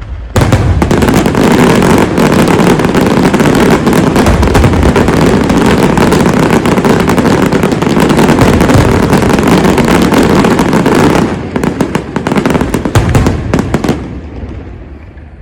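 Dense barrage of fireworks going off, many bangs and crackles at once. It starts abruptly about half a second in, thins out after about eleven seconds and dies away near the end.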